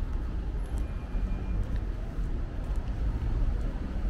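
Steady rumble of car traffic passing on a multi-lane city road.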